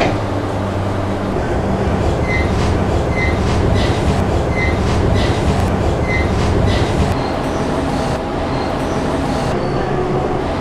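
Steady rumble of a moving vehicle, with light clicks and short high squeaks repeating through the middle; the low rumble eases after about seven seconds.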